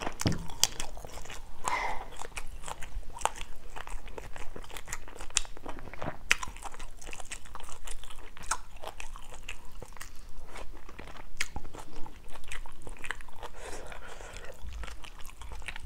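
A person chewing mouthfuls of stir-fried seafood instant noodles with squid and greens, picked up close by a clip-on microphone: many small, irregular wet mouth clicks and smacks.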